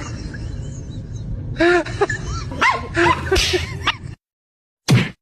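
A dog giving a run of short, arching yips and whimpers, followed by one brief loud burst near the end.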